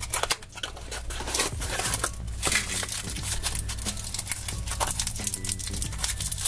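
Crinkling and rustling of a chocolate egg's cardboard box and its foil wrapper as they are handled and opened, in many short irregular crackles.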